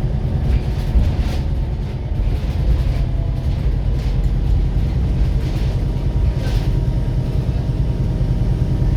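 Volvo B7RLE bus's diesel engine running under way with a steady low drone, the engine reported to be knocking. A few faint irregular rattles come through over the drone.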